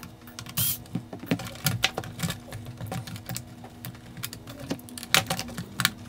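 Irregular light clicks and taps of hard plastic and small metal parts: hands working on a Roomba's plastic shell and its top screws during disassembly.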